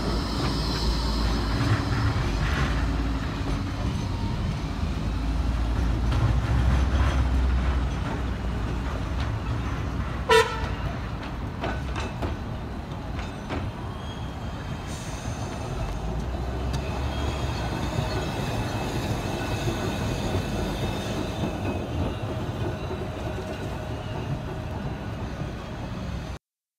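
Trams running along street track: the low rumble of a modern tram passing close by, then a heritage tram approaching. One short warning toot about ten seconds in.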